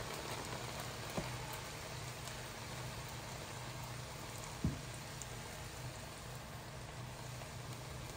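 Samosa filling of minced meat, onion and potato sizzling steadily in a frying pan, with two short knocks of the wooden spatula against the pan, about a second in and again near the middle.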